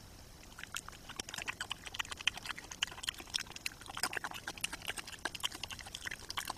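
European badger crunching and chewing dry food: a fast, irregular run of sharp crunches that starts about half a second in and carries on.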